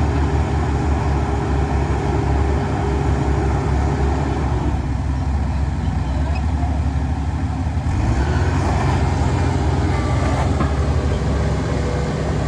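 Heavy diesel machinery running steadily with a low, even engine note. Its sound thins for a few seconds midway, and a few light clicks come in the second half.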